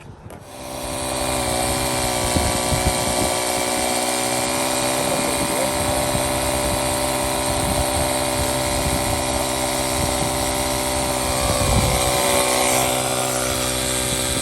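Air compressor running steadily to inflate a tyre. It is a steady motor hum that starts about half a second in.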